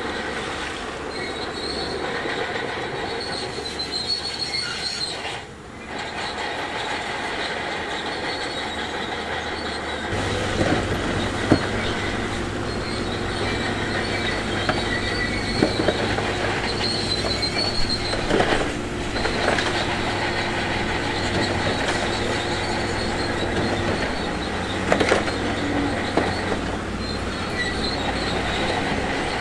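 Shantui DH17C2 crawler bulldozer at work: its diesel engine running, steel tracks squealing and clanking, with scattered sharp knocks of stone. The engine grows louder and deeper about ten seconds in, as it takes on load.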